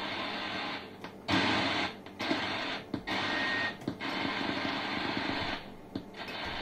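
Static hiss from an R-390A/URR receiver, cutting out briefly about five times as the megacycle-change knob steps the set down through its bands. The band-change gear train, whose broken gear clamp has been replaced, is carrying the set from band to band.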